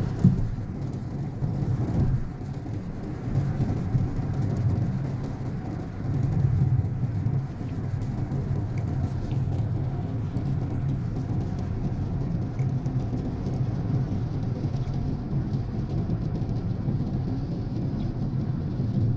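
Steady low rumble of a car driving on a wet road, heard from inside the cabin, with a brief knock just after the start.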